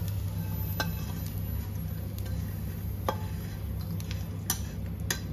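A steel spatula scraping and tapping against a kadhai as fried, puffed edible gum is pushed out into a steel plate. A few separate clicks and scrapes sound over a steady low hum.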